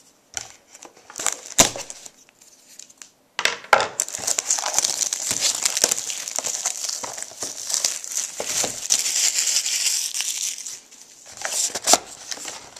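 Plastic shrink wrap being torn and crinkled off a factory-sealed trading-card box. A few scattered taps and scrapes come first, then about three seconds in a steady crinkling starts and runs for about seven seconds, ending in a few more taps.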